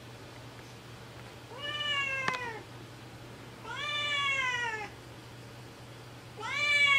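Calico cat meowing three times, each drawn-out meow about a second long and falling slightly in pitch, the last starting near the end. These are the complaints of a wary, half-tame cat being held on the lap of someone it is not used to.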